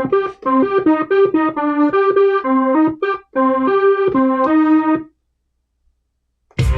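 A keyboard-like software lead sound with an electric piano or organ tone, playing a melody of single notes for about five seconds. After a short pause, the full beat comes in near the end with heavy bass and drums.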